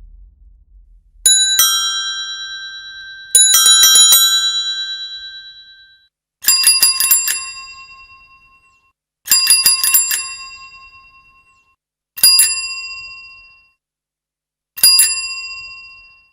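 Metal bicycle bells ringing. One bell is struck twice and then rung in a quick trill. A second, lower-pitched bell follows, rung in four short trills about three seconds apart, each ringing out and fading away.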